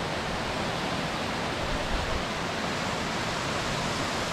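Steady rushing of a tall waterfall, with two brief low bumps about two seconds in.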